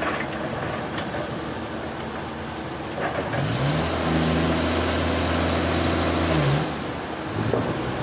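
Sawmill machinery running steadily, with a motor that speeds up about three seconds in, holds a steady loud pitch for about three seconds, then winds back down.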